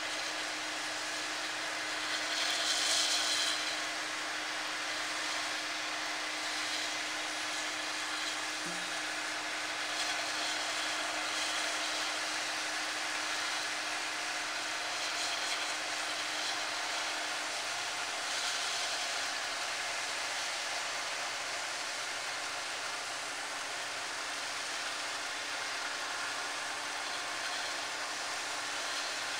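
Harvest machinery running steadily: an even engine and fan noise with a constant drone, briefly louder about three seconds in.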